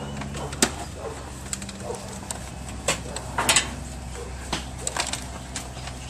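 Scattered clicks, knocks and rattles of hand tools and the plastic and sheet-metal washing-machine control console being handled as its wiring harness is taken apart, over a steady low hum.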